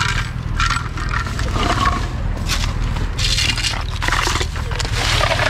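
Footsteps crunching on gravel, dry leaves and plastic litter, with irregular crackling and rustling, over a steady low rumble of wind on the microphone.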